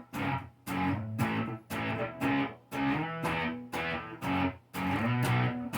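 Electric guitar played through a Fender Bassman amp: chords strummed in a choppy rhythm, each cut short by a brief gap.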